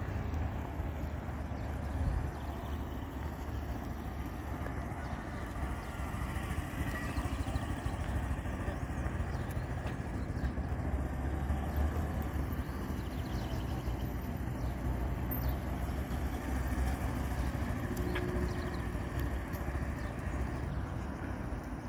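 Motorcycle engine running at low speed as the bike weaves slowly through a cone course.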